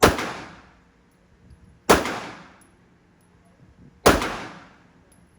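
Three gunshots about two seconds apart, each sharp crack trailing off in a long echo.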